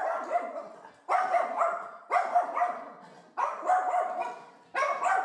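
Dog barking repeatedly, about one bark a second; each bark starts sharply and trails away.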